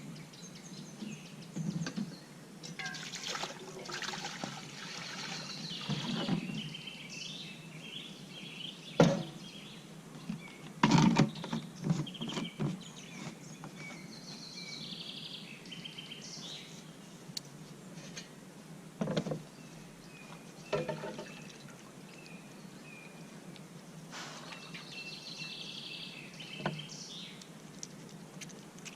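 Songbirds singing on and off throughout, with a few sharp knocks and clatters from handling gear, the loudest about a third of the way in and two more a little past the middle.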